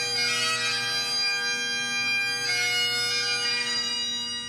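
Bagpipes playing a slow melody over steady drones.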